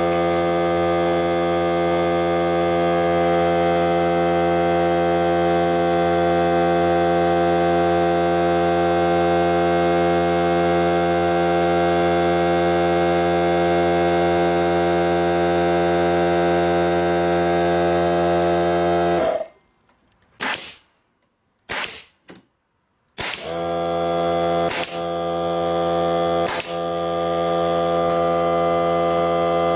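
Greenworks 40V cordless air compressor's motor running with a steady hum, cutting off abruptly about 19 seconds in and starting again about four seconds later. Over the last few seconds a pneumatic brad nailer fires about once every two seconds over the running compressor.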